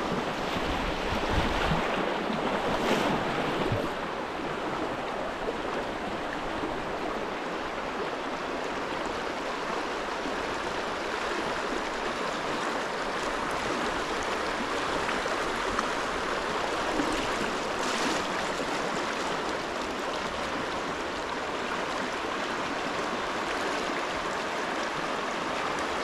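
Shallow stream running over rocks in a riffle: a steady rushing of water, with a few dull low bumps in the first few seconds.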